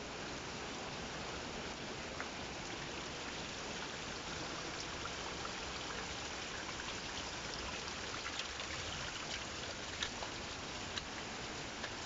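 Steady rushing of falling water, an even hiss, with a few light clicks scattered through it.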